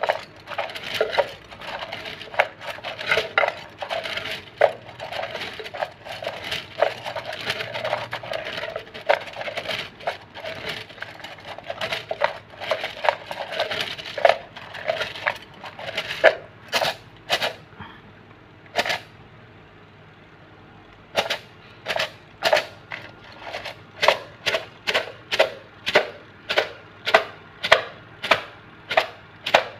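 Bamboo fortune sticks rattling in their cylinder as it is shaken to make one stick fall out: a fast clatter for about the first half, then separate sharp clacks roughly two a second, with a brief pause about two-thirds of the way through.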